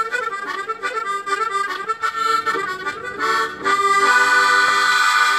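Harmonica playing a fast Sardinian ballu tundu dance tune of quick running notes, closing on one long held chord that stops as the tune ends.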